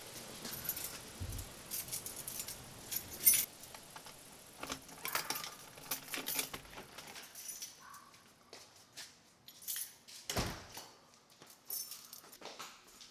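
Keys jangling in short, irregular bursts of high metallic clicks and jingles, loudest about three seconds in and sparser in the second half. Dull low thumps sound about a second in and again about ten seconds in.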